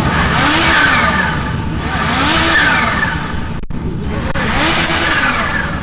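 Sport motorcycles passing one after another at speed, three passes in a row, each engine note rising as the bike approaches and falling away as it goes by, with a rush of exhaust and wind noise.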